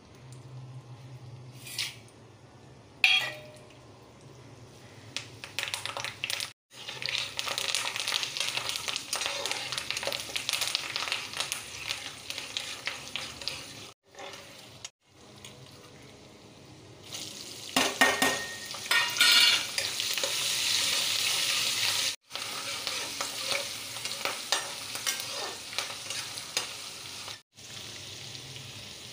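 Hot oil sizzling and crackling in a kadai as a tempering of peanuts, dal, mustard seeds, green chillies and curry leaves fries, with a metal spatula stirring and scraping against the pan. The sound breaks off abruptly several times.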